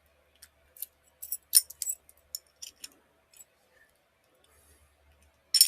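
Steel padlock and its key being worked by hand: a run of sharp metallic clicks and clinks through the first three and a half seconds, a pause, then a loud clack near the end.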